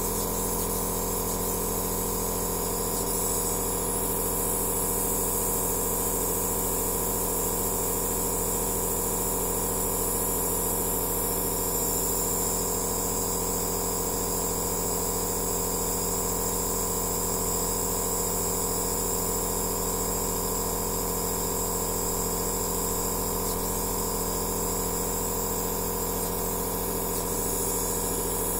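Aerosol therapy nebulizer's compressor running steadily: a constant motor hum made of several steady tones, under a hiss of air.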